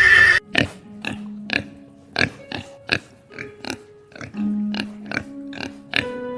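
A loud animal call cuts off about half a second in. Light background music follows, with short plucked notes at a steady, bouncy beat over held tones.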